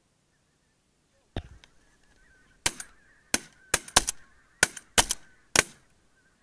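A rapid volley of shotgun shots, about eight sharp reports, some in quick pairs, fired at geese passing overhead. Behind them geese honk faintly.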